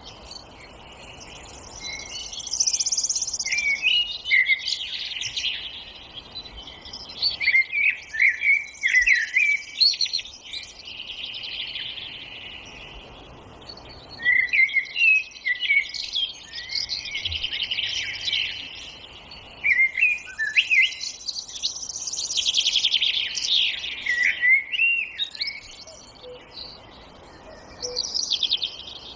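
Songbirds singing, with many overlapping chirps and quick trilled phrases from several birds in turn, over a faint steady background hiss.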